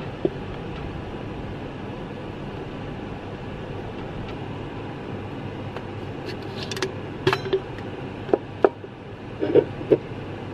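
Steady hum throughout, with a string of short clinks and knocks in the second half as a metal cup and aluminium drink cans are handled and set down on a table.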